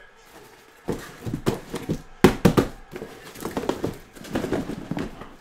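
Sealed hobby boxes being pulled out of a cardboard shipping case: a run of knocks, scrapes and cardboard thumps that starts about a second in, the loudest a little past two seconds in.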